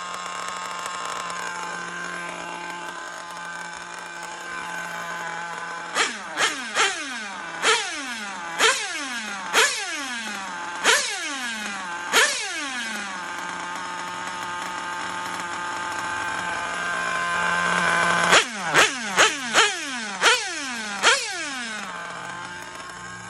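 Picco nitro engine in a Mugen Seiki MRX-6 1/8-scale car idling, then blipped on the throttle in two quick runs of revs with the wheels spinning free off the ground. Each blip shoots up and falls back toward idle.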